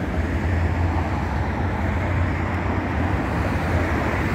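Steady road traffic noise from cars passing on a multi-lane boulevard, heavy in the low end.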